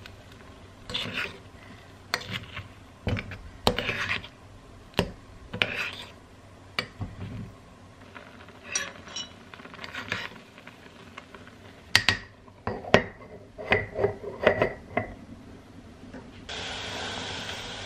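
A metal spoon stirring and scraping egg mixture against the sides of an earthenware pot as the steamed egg begins to set: a string of separate clinks and scrapes, thickest about twelve to fifteen seconds in. Near the end a steady hiss comes in.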